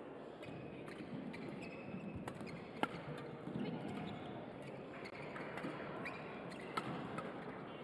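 Badminton rally: sharp racket strikes on the shuttlecock, the loudest about three seconds in, with court shoes squeaking and feet moving on the court floor over the hum of a large sports hall.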